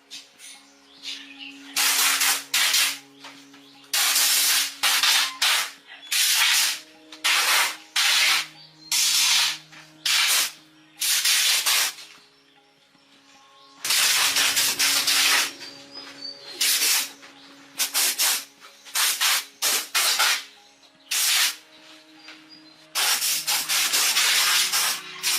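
Repeated bursts of hissing noise, each half a second to a second and a half long with short pauses between, over faint steady low tones.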